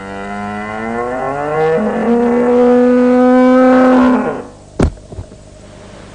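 A cartoon cow's long, drawn-out moo, rising in pitch and then held steady before stopping about four seconds in. Two sharp knocks follow a moment later.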